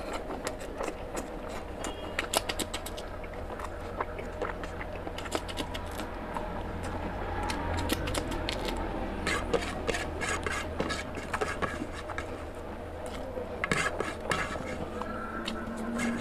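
Fingers scraping rice and curry off a ceramic plate, with close-miked chewing and wet mouth clicks as handfuls of rice are eaten; a steady low hum runs underneath.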